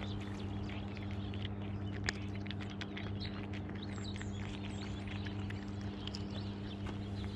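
Cats crunching dry kibble close by: a rapid, irregular run of crisp little clicks, over a steady low hum.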